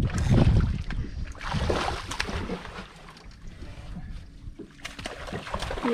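Wind rumbling on the microphone on a small fishing boat, with scattered knocks and handling noises.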